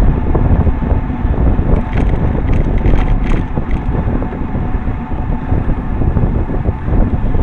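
Wind buffeting a camera microphone on a moving road bike, mixed with low tyre and road rumble. A few short clicks and rattles come about two to three and a half seconds in.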